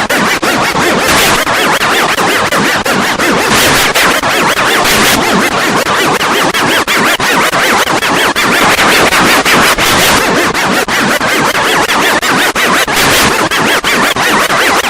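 Loud, harsh edited collage of sound effects, chopped into fast stuttering repeats several times a second like record scratching.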